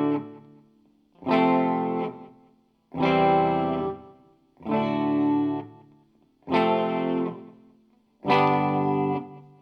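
Guitar played through a Zoom 504 Acoustic multi-effects pedal: single strummed chords about every second and three-quarters, each ringing for about a second before being damped.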